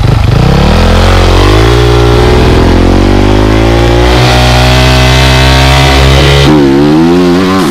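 Motocross bike engine revving. Its pitch climbs slowly for about six seconds, then swings up and down quickly near the end.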